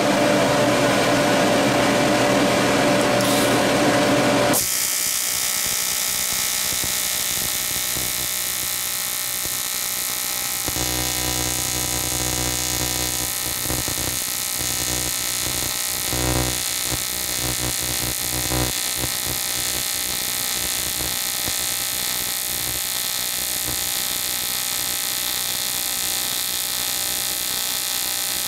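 The welding machine hums with its fan running, then about four and a half seconds in an AC TIG arc strikes on thick aluminum and buzzes steadily at high amperage on a Primeweld 325. From about eleven to nineteen seconds in, a deeper, heavier hum joins the buzz before it settles back.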